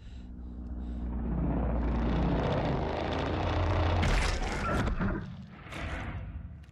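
Monster-film soundtrack: a deep rumble with low held tones underneath, swelling to a peak about four seconds in and then fading.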